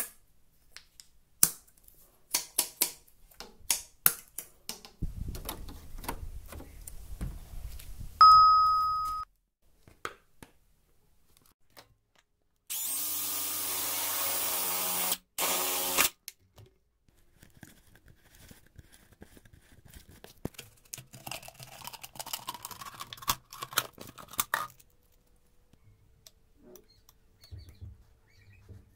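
Scattered handling clicks and taps, a short electronic beep, then a drill running for about three seconds, with a brief break, as its bit bores through a plastic bottle cap.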